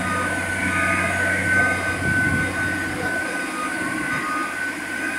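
A rotary drilling rig's diesel engine and hydraulics running steadily, with a low hum under a thin high whine that fades and returns.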